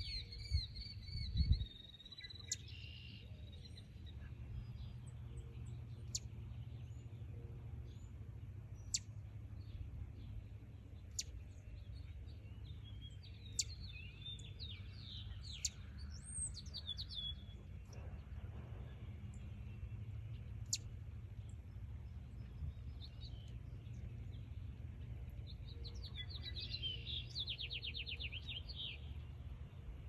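Eastern chipmunk chirping: short, sharp high chirps every few seconds, then a quick run of repeated chirps near the end, over a low steady background rumble.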